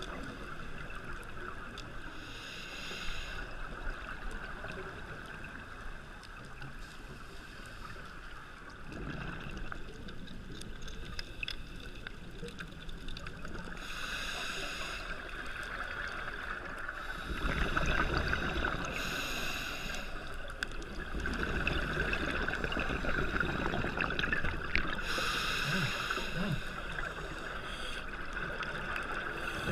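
Scuba diver breathing through a regulator underwater. Short hissing inhalations alternate with longer bursts of exhaled bubbles, one breath every five or six seconds.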